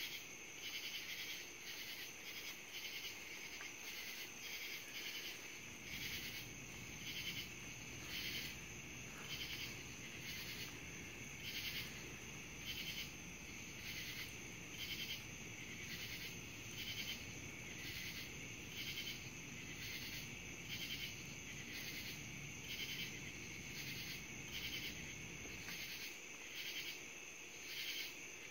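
A chorus of night insects calls in short, even, high pulses, about one or two a second. A faint low rumble lies underneath through most of the middle.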